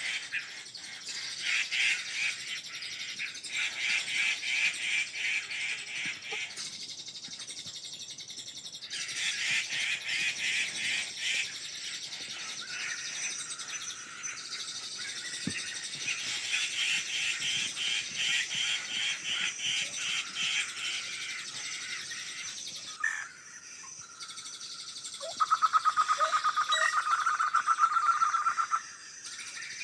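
Birds calling, a series of rapid chattering trills that start and stop every few seconds. About 25 seconds in, a louder, very even rapid trill at a lower pitch runs for about three and a half seconds, then cuts off.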